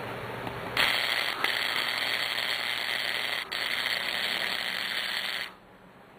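Wire-feed welding arc crackling as a steel fence-rail leg is welded onto a propane tank. It starts about a second in, breaks off briefly twice, and cuts off suddenly near the end.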